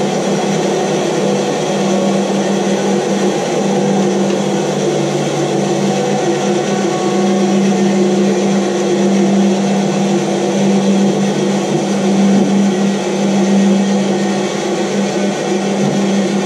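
Bandsaw running with a steady hum while a block of wood is fed through the blade.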